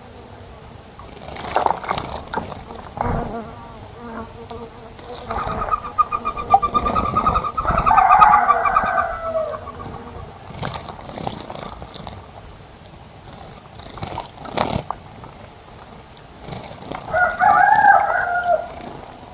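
Bird calls: a longer run of calls from about five to ten seconds in and a shorter call near the end, with a few short sharp clicks between.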